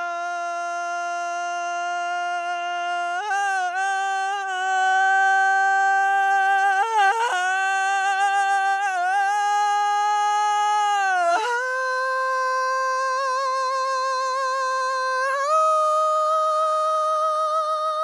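A man's raw, unprocessed solo vocal, sung wordlessly and high in a Middle Eastern style. It moves through long held notes that step upward in pitch, with quavering ornaments a few seconds in and vibrato on the last two notes.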